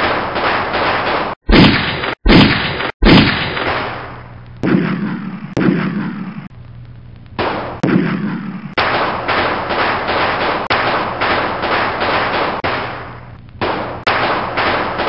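Bursts of rapid gunfire, many shots a second, broken by sudden cuts near the start and fading away between bursts.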